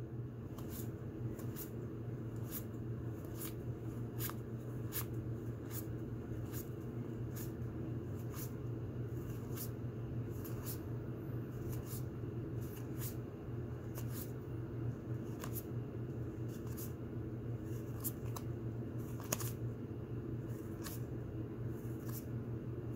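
Stiff game cards being flipped one by one through a hand-held stack, each card giving a short soft snap, a little more than once a second. A steady low hum runs underneath.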